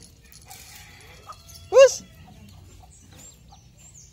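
A cat's short mew: one brief call that rises and falls in pitch, about two seconds in.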